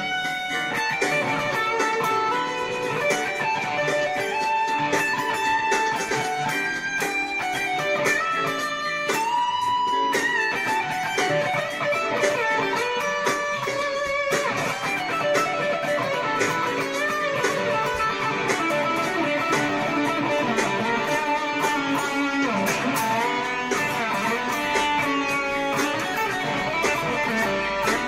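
Electric guitar played through a BOSS Power Stack distortion pedal, improvising a continuous lead in E minor with bent, gliding notes.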